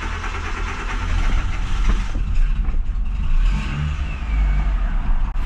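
2007 Nissan Sentra GSX engine catching after a long crank and running with a few revs. It is hard-starting, which the mechanic traces to a weak fuel pump.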